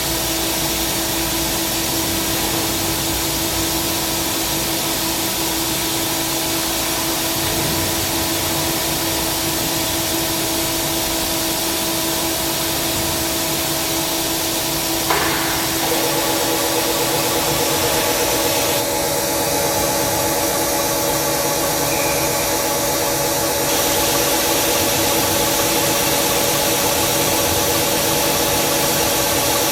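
Tsugami SS32 Swiss-type sliding-headstock CNC lathe running a machining cycle: a steady whine over constant hiss, with a click about halfway through, after which a second, higher whine joins.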